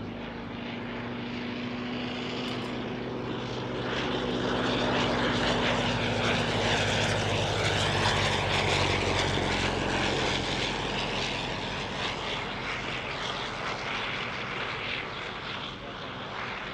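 Fokker Dr.I triplane's Oberursel rotary engine running smoothly on a low pass. It grows louder a few seconds in and then slowly fades as the plane flies on.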